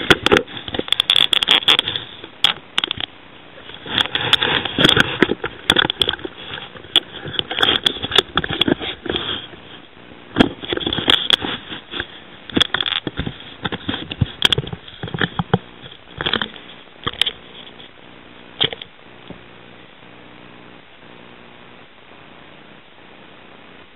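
Handling noise: irregular rustling and sharp clicks that die away about 19 seconds in, leaving a faint steady hum.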